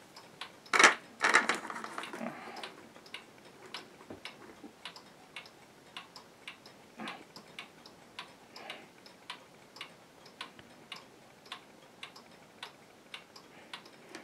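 Several mechanical pendulum wall clocks ticking together, their ticks overlapping into a rapid, slightly uneven tick-tock. A couple of loud knocks sound about a second in.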